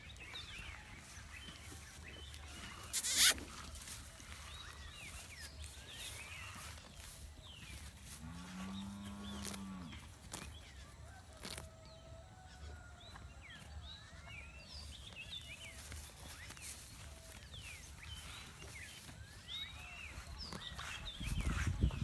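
A zebu-type ox lowing once, a single call of about a second and a half, about eight seconds in. Small birds chirp throughout, with a sharp knock about three seconds in and a low rustling near the end.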